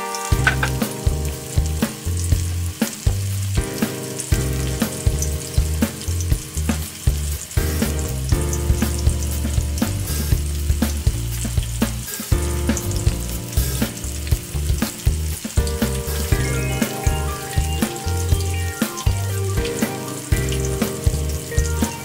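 Flour-coated chicken pieces deep-frying in hot oil in a wok, a steady sizzle with crackles. Background music with a bass line and a regular beat plays along.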